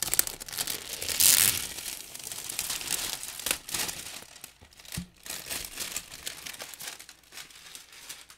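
Plastic shrink wrap being peeled and torn off a cardboard box, a dense crinkling that is loudest a little over a second in. A single thump about five seconds in.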